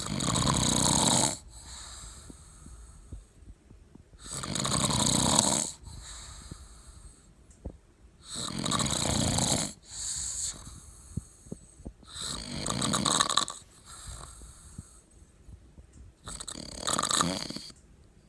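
A man snoring in a drunken sleep: five loud snores about four seconds apart, with a quieter breath between each.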